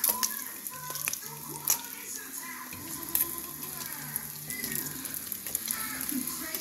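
Slices of Spam frying in oil in a nonstick skillet: a steady sizzle with crackles, and a couple of sharper pops near the start.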